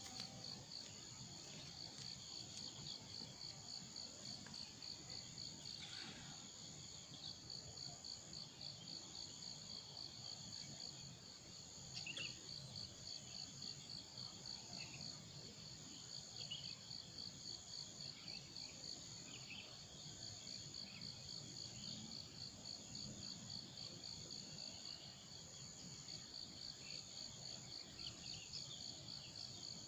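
Steady, high-pitched insect chorus: a fast pulsing trill that keeps on without a break, with a few faint short calls over it now and then.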